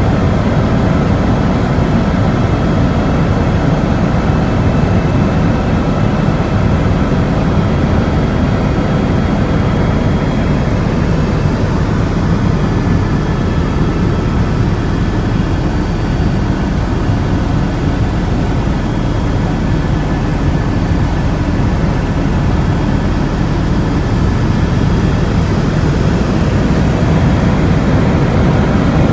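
Steady, loud engine drone, deep and unbroken, with a few faint steady whining tones above it.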